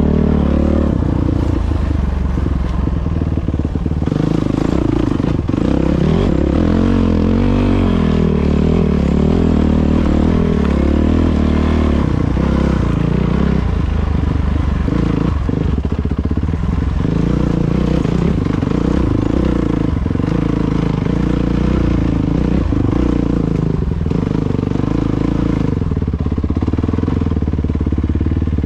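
Yamaha dirt bike engine running under way, heard from the rider's helmet, its pitch rising and falling over and over with the throttle on rough single track.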